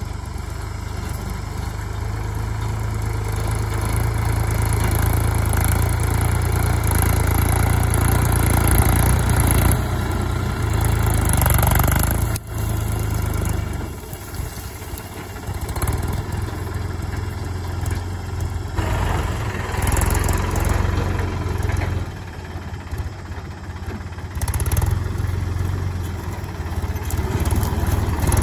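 Mahindra Yuvo Tech+ 415 tractor's 42 hp diesel engine running steadily under load as its front dozer blade pushes soil, with a strong low drone that grows louder over the first several seconds as the tractor comes closer.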